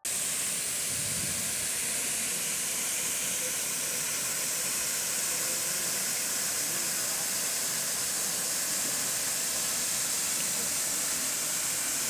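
Steady rushing hiss of a waterfall and the flowing water of its pool.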